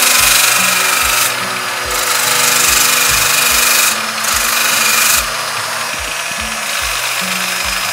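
A corded power grinder sanding down damaged fiberglass and gelcoat on a rudder, a rough rasping that swells and eases as the tool is worked along the surface, to strip away the loose, broken material before repair.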